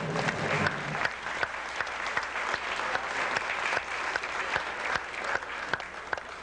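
Recital music ends about a second in and an audience applauds, the clapping thinning out toward the end.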